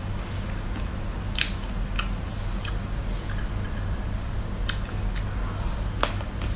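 Close-up eating sounds of a person biting into a coated ice cream bar on a stick: several short, crisp clicks and crunches spaced about half a second to a second apart. A steady low hum runs underneath.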